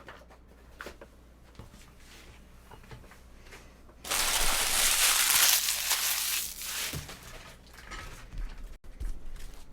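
Wrapper of a trading-card pack being torn open and crumpled: after a few seconds of faint card-handling clicks, a loud rustle starts suddenly about four seconds in and lasts about three seconds before dying away.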